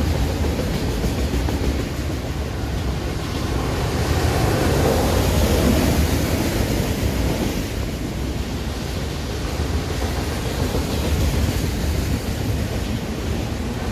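Freight train of autorack cars rolling past: a steady rumble and rush of steel wheels on the rails.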